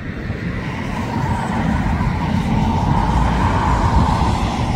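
Airliner engine noise as an aircraft passes, a loud rumble that swells to a peak about four seconds in and then begins to ease.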